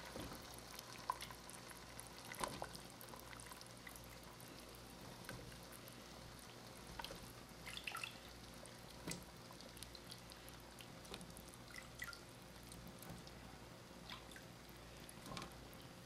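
Peeled potatoes being set by hand into a pot of beef broth: faint, irregular small plops and splashes, with an occasional light knock.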